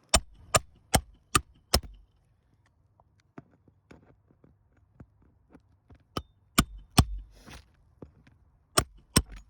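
Hammer striking roofing nails on an asphalt-shingle roof: a quick run of five sharp blows, then three, then two, with small clicks of handling between.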